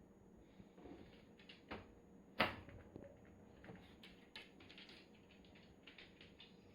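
Light clicks and rattles of a refrigerator's freezer drawer being handled, with one sharp knock about two and a half seconds in.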